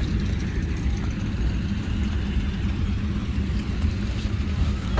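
Steady low rumble of wind buffeting the microphone, mixed with the wash of surf.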